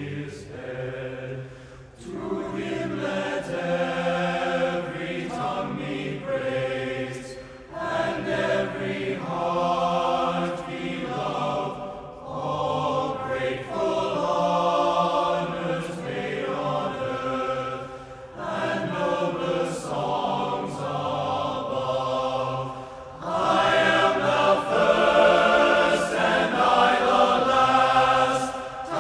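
Men's glee club singing unaccompanied in several voice parts, in slow held phrases with short breaths between, swelling noticeably louder near the end.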